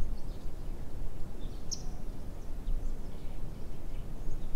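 Open marsh ambience: a low, steady rumble of wind noise with a few short, high bird chirps scattered through it, the clearest about two seconds in.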